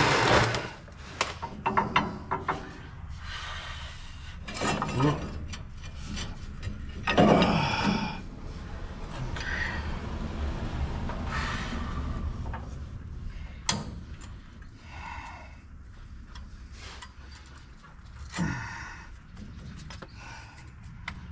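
Irregular scraping, rubbing and clunking of heavy metal parts being worked by hand, with one sharp click about two-thirds of the way through.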